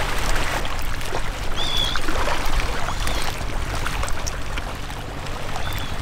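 Shallow pond water splashing and sloshing as the fishermen wade and work the net. Short splashes come throughout, and brief high chirps are heard three times.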